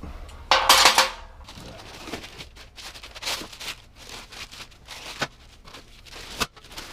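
Packing material rustling and loose metal band saw parts clicking and knocking as they are handled out of the box. There is a loud burst of rustling about half a second in, then scattered clicks, the sharpest near the end.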